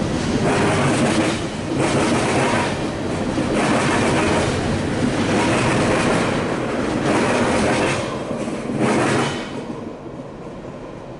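Freight train of tank cars and covered hoppers rolling past, the wheels clattering in repeating surges about every one and a half to two seconds. The noise drops away near the end as the last car clears.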